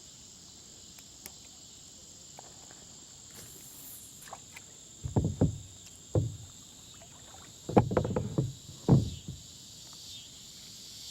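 A steady insect chorus, with a cluster of heavy thumps and knocks against the kayak from about five to nine seconds in while a hooked bass is being fought.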